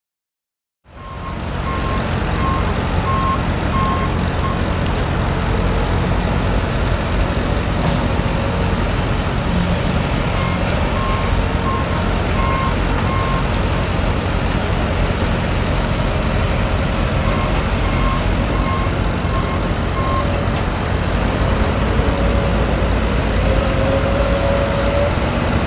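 Diesel engines of a backhoe loader and a dump truck running steadily, with a reversing alarm beeping about twice a second in three spells. An engine note climbs near the end.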